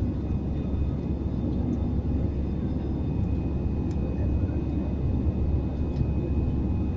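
Passenger airliner cabin noise during the climb after takeoff: a steady deep rumble of engines and airflow, with a faint steady high whine above it.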